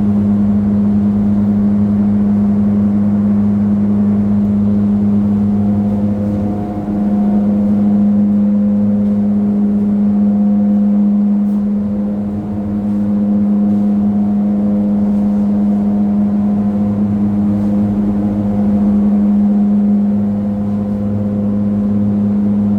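Spray-finishing equipment running with a steady, loud motor hum on one low pitch, dipping slightly in level a few times as a top coat is applied.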